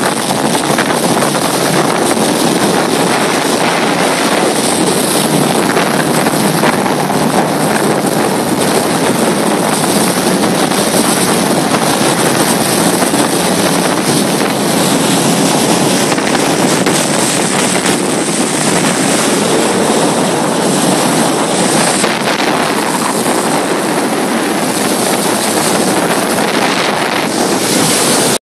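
A small motorboat under way on a river, its motor running steadily under a loud, even rush of wind on the microphone.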